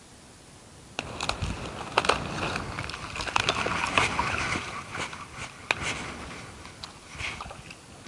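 Splashing and sloshing in shallow creek water with many sharp clicks and knocks, starting about a second in and thinning out near the end, as someone works the water to catch minnows.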